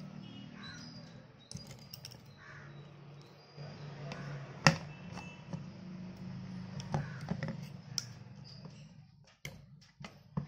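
Cutting pliers snipping off the excess wire leads of newly soldered diodes on a circuit board: a few sharp clicks, the loudest about halfway through and several more near the end, over a steady low hum.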